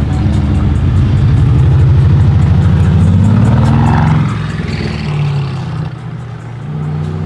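Mercedes-AMG GT S twin-turbo V8 on a straight-pipe exhaust, loud and accelerating with its pitch climbing for about four seconds. It then eases off to a lower, steadier engine note.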